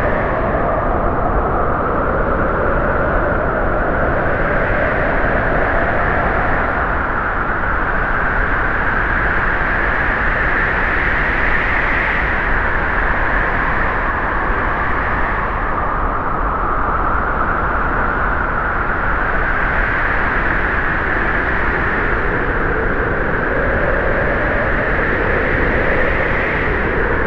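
Steady, loud rushing noise whose tone slowly sweeps up and down every ten seconds or so, with no breaks or impacts.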